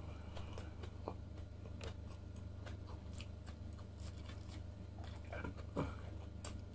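Close-miked chewing of a mouthful of grilled lamb chop and rice, with scattered wet mouth clicks and smacks. A slightly louder smack comes a little before the end, over a steady low hum.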